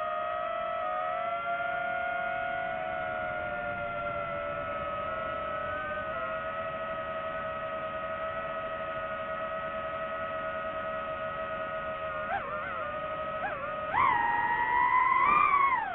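DJI FPV drone's propellers and motors whining steadily in flight, the pitch wavering slightly. Twice near the end the pitch blips, then it jumps up louder as the throttle opens and falls back down at the very end.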